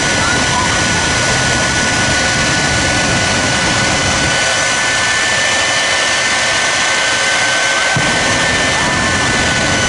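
Two jet dragsters' jet engines running on afterburner: a loud, steady rush of noise with a high, steady turbine whine over it.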